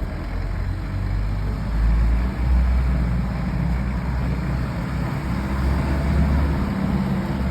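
A 1962 Mercedes-Benz 190D's four-cylinder diesel engine running as the car is driven, a steady low rumble mixed with road noise.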